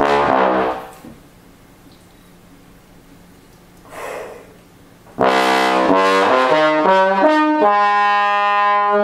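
Bass trombone playing. A phrase ends under a second in, and after a pause with a breath at about four seconds, a new phrase of several changing notes ends on a long held note.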